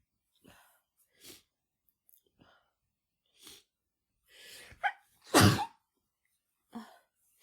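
A woman sneezing, brought on by chhinkni, a sneeze-inducing herbal snuff, while she has the flu: a few short breaths about a second apart, a gasping intake, then one loud sneeze about five and a half seconds in, and another short breath near the end.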